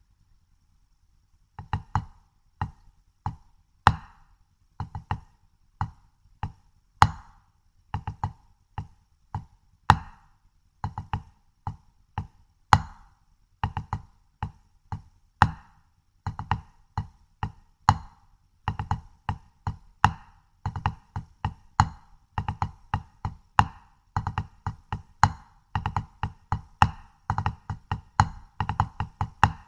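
Wooden drumsticks on a Red Storm ProLogix practice pad playing the single ratamacue rudiment, starting about a second and a half in. Each group is a two-stroke drag into a triplet of single strokes with the last stroke accented, the hands alternating each group. The groups come about once a second at first and follow closer together, faster, from about two-thirds of the way through.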